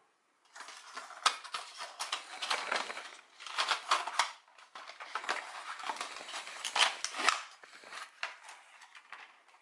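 Plastic blister tray of lift-off correction tape spools and its cardboard box being handled and packed away: irregular rustling and crinkling with many light plastic clicks.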